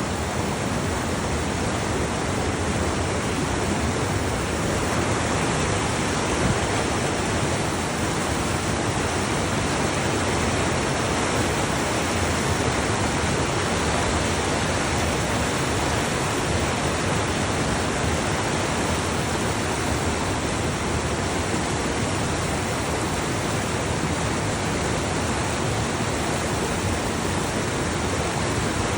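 Steady rushing of flowing water, a mountain creek or falls, as an even unbroken hiss and rumble.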